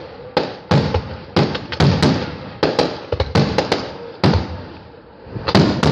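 Aerial fireworks shells bursting overhead in a quick, uneven run of about a dozen sharp bangs, each fading out in a short echo. There is a brief lull about four and a half seconds in before more bangs near the end.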